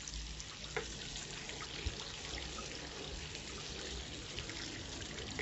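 Bacon, onion and bell pepper sizzling steadily in a frying pan as they are stirred, with a couple of light spatula clicks in the first two seconds.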